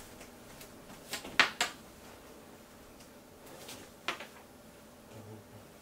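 A few soft taps and rustles from furry fursuit paws moving and touching during sign language, a short cluster about a second in and one more near four seconds, over faint room tone.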